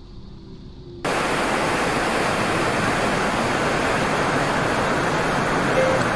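Waterfall: a loud, steady rush of falling water that cuts in suddenly about a second in.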